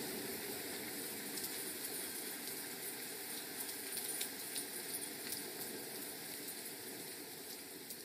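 A steady rain-like hiss with faint scattered crackles, slowly getting quieter.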